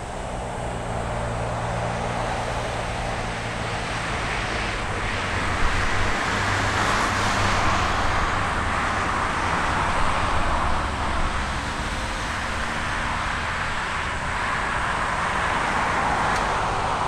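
Airbus A330 airliner's twin Rolls-Royce Trent 700 jet engines running at taxi power as the aircraft rolls and turns toward the runway: a steady jet rush over a low hum, swelling a little partway through.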